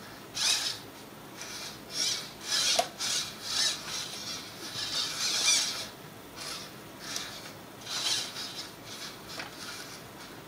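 Dynamixel AX-12A servos whirring in a string of short, high-pitched, irregular bursts as they drive a robot's head up and down, side to side and through its tilt and eye movements together.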